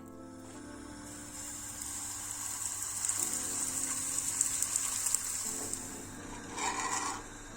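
A steady sizzling hiss that builds over the first second and eases off about five and a half seconds in, over soft background music, with a short burst of noise near the end.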